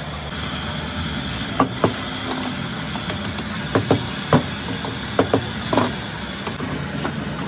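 A steady motor hum with a series of sharp knocks, several in quick pairs, from about one and a half seconds in to near six seconds.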